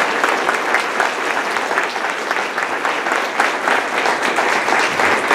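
A roomful of people applauding, a dense and steady round of clapping.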